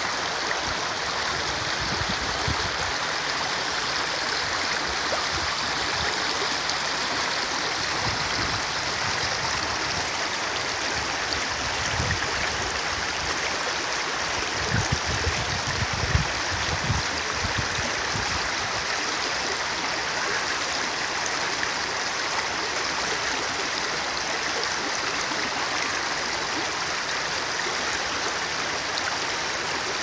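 Shallow mountain river rushing over stones in a fast riffle: a steady hiss of flowing water, with a few low bumps about halfway through.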